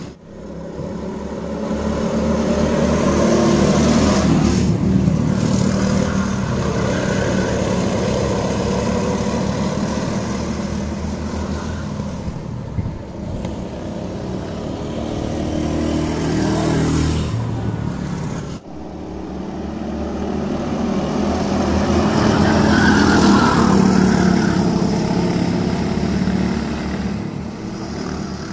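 Go-kart engines running on the circuit, swelling as karts come close and fading as they move off, twice over; the sound drops out suddenly about two-thirds of the way through, then builds again.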